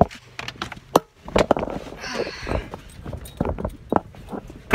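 Handling noise as someone climbs into a car: a string of clicks and knocks with some rustling, and a sharper knock about a second in.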